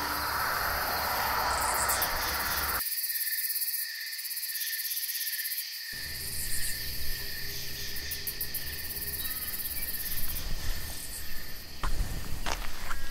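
Insects chirring at a summer campsite: a steady high-pitched trill with pulsing chirps running over it.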